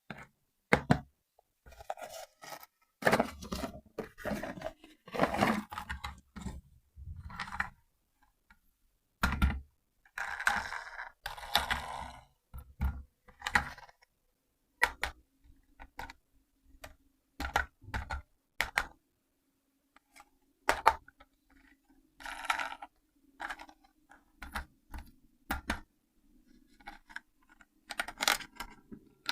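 Irregular clicks, knocks and scrapes of toy parts and packaging being handled, with a few short rustling stretches. A faint low hum comes in about halfway through.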